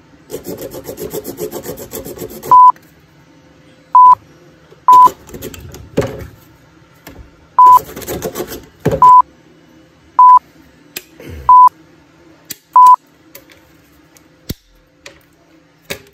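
Hand tools sawing and scraping at 3D-printed PLA plastic in short, rasping bouts, the longest over the first two and a half seconds. Eight short, loud beeps of a single pitch cut in between the bouts.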